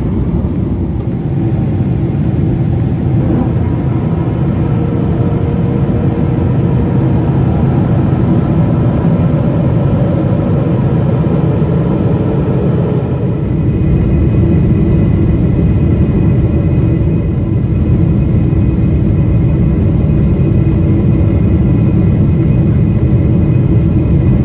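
Airbus A350-1000 cabin noise beside the wing on final approach and landing: a steady rush of air and Rolls-Royce Trent XWB engines with a faint hum of tones. About halfway through it grows louder, with higher tones added, and by the end the airliner is rolling out on the runway after touchdown.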